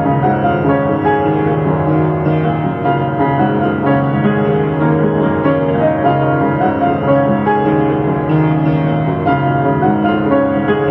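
Background music led by piano, steady and continuous.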